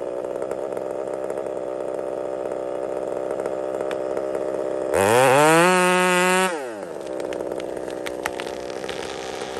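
Husqvarna 372XP two-stroke chainsaw running steadily with its bar buried in the back cut of a large tree. About five seconds in, the saw revs up sharply to a higher, louder pitch for about a second and a half, then drops back to its steady cutting note.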